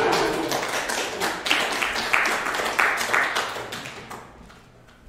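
Small audience applauding, dying away about four seconds in.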